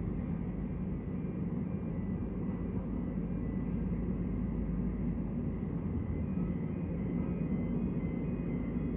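Boeing 777 freighter taxiing with its two jet engines at low thrust: a steady low rumble with a faint high whine over it.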